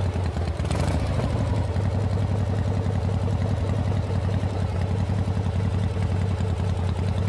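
Domestic cat purring, a loud, steady, low rumble that keeps on without a break.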